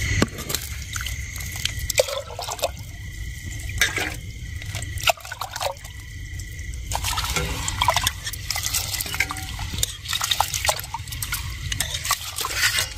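Rice being washed by hand in water in an aluminium pot: irregular splashing and sloshing, with short clicks as the hand stirs and rubs the grains.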